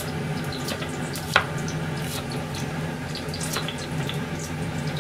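Kitchen knife slicing a green pepper into rings on a plastic cutting board: irregular light taps of the blade on the board, with one sharper knock about a second and a half in. A steady hiss and low hum run underneath.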